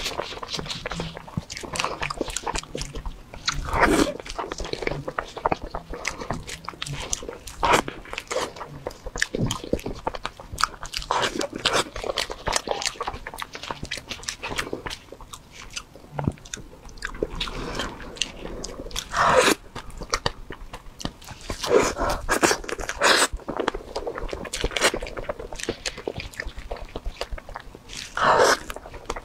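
Close-miked eating of a soft crepe 'towel roll' cake: irregular bites and wet chewing mouth sounds, with louder bites now and then.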